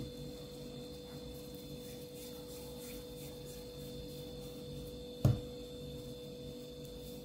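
Steady low hum with a faint high whine, and one dull thump about five seconds in.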